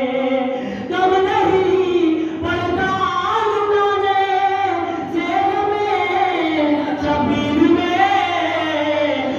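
A solo voice singing a slow devotional melody, holding long notes that bend and waver in pitch, over a steady low hum.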